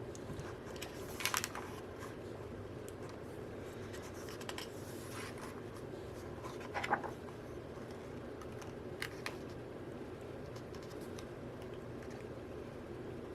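Paper and card album contents being handled: a few brief scrapes and rustles and light taps, over a faint steady hum.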